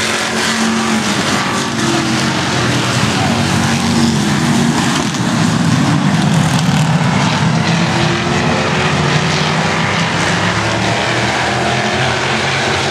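A field of stock cars racing in a tight pack on a short oval track, many engines running hard at once, getting a little louder as the pack comes closest a few seconds in.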